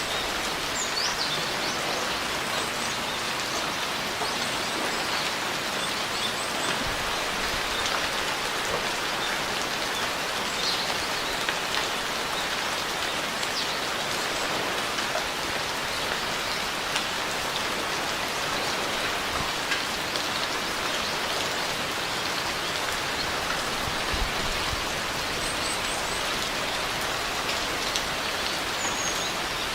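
Steady rain falling on surfaces, an even patter of drops at a constant level throughout.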